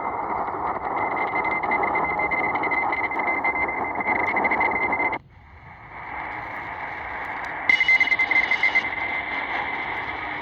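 Shortwave static and hiss from a portable receiver's speaker tuned to a weak distant station, with a steady high whistle running through it. The noise cuts out abruptly about halfway, then builds back, and there is a brief louder, flickering burst near the end.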